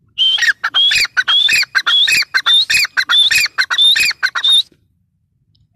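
Grey francolin calling: a loud run of quickly repeated shrill notes in a rhythmic, repeating phrase, lasting about four and a half seconds and then stopping.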